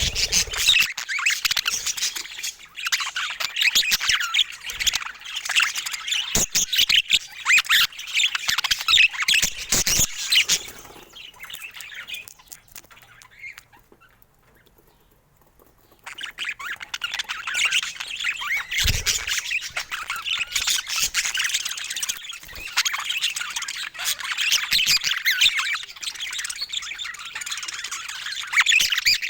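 Budgerigars chattering, a dense run of quick chirps and warbles. The chatter dies away about a third of the way in, stops for a few seconds, and then starts up again.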